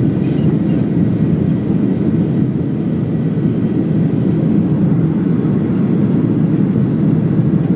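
Cabin noise of a Ryanair Boeing 737-800 airliner in flight, heard from a window seat near the wing: a steady, even, low rumble of jet engines and airflow.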